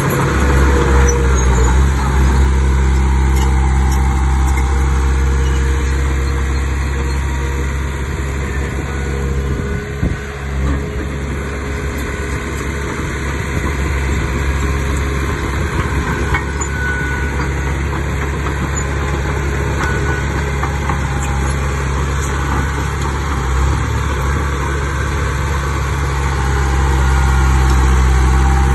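Heavy earthmoving machine's diesel engine running steadily, with a brief dip about ten seconds in and getting louder near the end.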